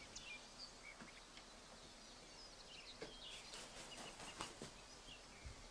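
Faint background of small birds chirping, with a few soft taps about three and four seconds in.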